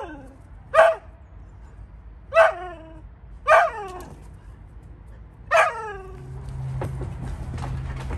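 Siberian husky barking: about five sharp, pitched barks, each dropping in pitch at its end, typical of the pack's dominant female laying down the rules to a newcomer. From about six seconds a low steady rumble and scuffling take over.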